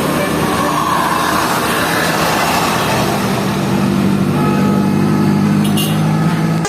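A large vehicle, likely a bus, passing close by with engine and road noise. A steady low engine drone comes in about halfway through.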